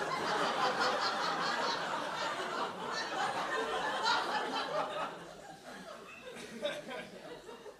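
Studio audience laughing at the sketch, a dense burst of many people's laughter that holds for about four seconds and then dies away toward the end.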